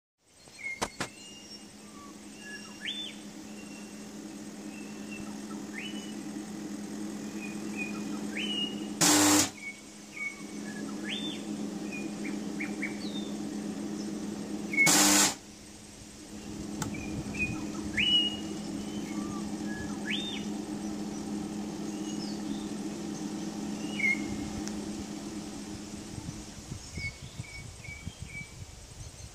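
Homemade micro spot welder humming steadily, firing two loud half-second weld pulses about six seconds apart as it joins 0.1 mm stainless steel foil; the hum stops near the end. Birds chirp throughout.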